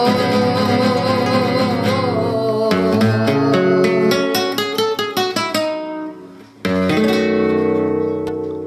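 Acoustic guitar playing the instrumental interlude between payada verses: a run of plucked notes that thins out and fades. About two-thirds of the way through, a single strummed chord rings out and slowly dies away.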